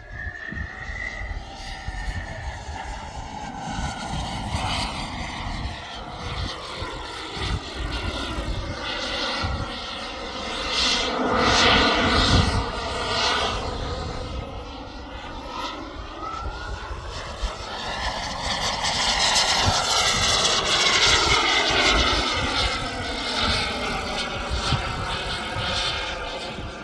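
Turbine engine of a radio-controlled Mephisto model jet in flight, making two close passes: the whine swells and its pitch rises and then falls as it goes by, loudest about halfway through and again about three-quarters through.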